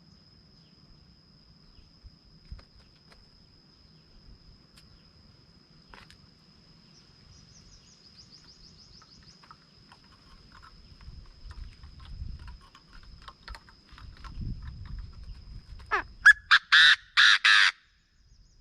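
Chinese francolin calling a loud burst of about five harsh notes near the end, over a steady thin high insect tone that runs throughout.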